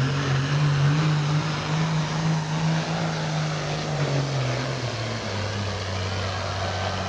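Heavy super stock diesel pulling tractor's engine running loud and steady under load while it drags the weight sled. Its pitch drops about two-thirds of the way through and holds at the lower note.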